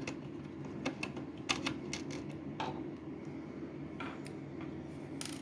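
Scattered light metallic clicks and clinks, about half a dozen, as a small 5.5 mm socket and tiny nuts are worked off the circuit board's mounting posts, over a steady low hum.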